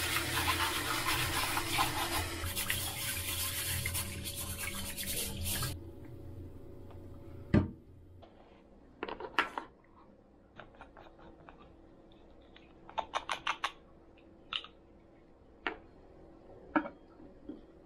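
Kitchen tap running onto rice in a stainless mesh strainer as it is rinsed by hand; the water stops about six seconds in. A sharp knock follows, then scattered light clicks and taps.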